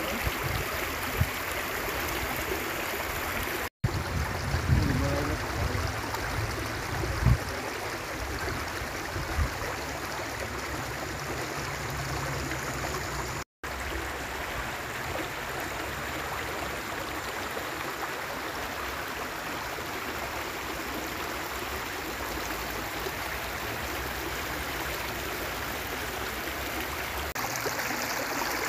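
Steady rush of water flowing in a small stream or irrigation channel, with a few low thumps about four to seven seconds in, broken by two brief silent gaps.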